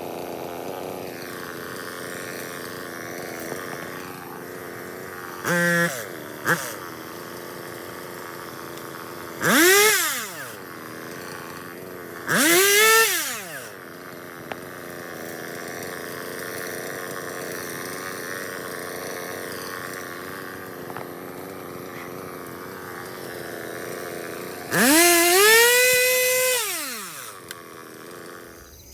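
Two-stroke chainsaw idling steadily and revved up to full throttle three times, the pitch climbing and then dropping back to idle; the last rev, near the end, is the longest.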